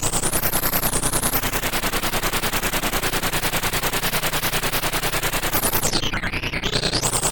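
A rapid, even stutter of electronic noise, about eight pulses a second, with a sweeping whoosh in the treble that dips low and rises again near the end.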